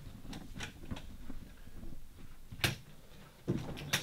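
A few scattered soft knocks and clicks in a quiet room, the sharpest about two and a half seconds in and again just before the end.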